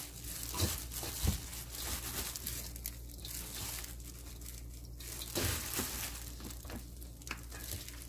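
Hands in a thin disposable plastic glove mixing a heap of seasoned garlic chives and sliced onion: irregular crinkling of the glove and wet rustling of the leaves, with a few sharper knocks.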